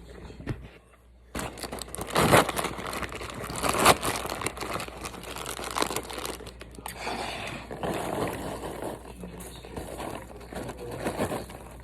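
A paper microwave popcorn bag crinkling and rustling as it is opened and handled and the popped popcorn shaken out, starting about a second in.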